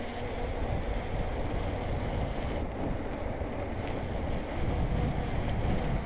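Steady wind rushing over the microphone of a camera on a moving bicycle, with a low rumble and a few faint clicks as the bike rolls along a concrete path.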